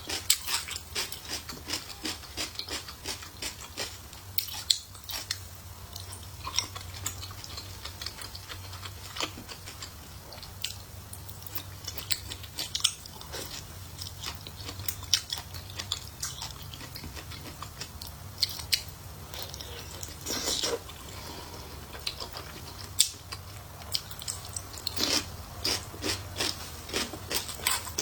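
Close-miked chewing and eating mouth sounds: a dense run of wet smacks and clicks, with louder clusters every few seconds, over a faint steady low hum.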